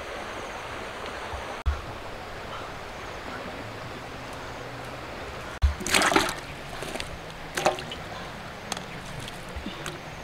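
Steady outdoor hiss, then about halfway in, lemongrass stalks and red chillies dropped into water in a large metal wok land with a loud splash, followed by a few smaller splashes.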